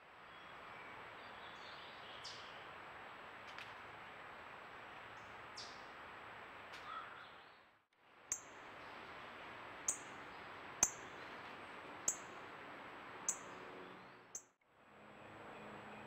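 Steady hiss from a trail camera's microphone, with short high bird chirps: a few scattered ones in the first half, then six sharp chirps a little over a second apart. The sound drops out twice, briefly, where one clip cuts to the next.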